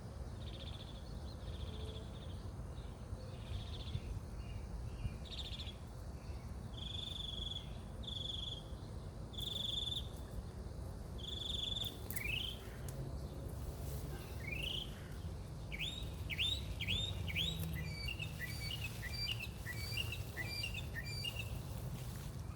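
Birds singing. First comes a series of short, level whistled notes; about halfway through these give way to several quick rising notes, and then to fast twittering near the end. A steady low rumble runs underneath.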